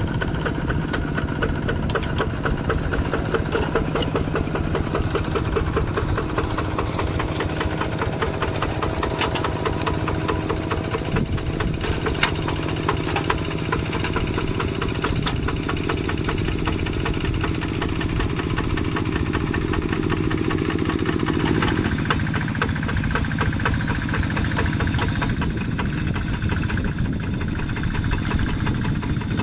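Diesel engine of a two-wheel hand tractor running steadily under load while ploughing wet rice-field soil, with a few brief clanks. Its tone shifts about two-thirds of the way through.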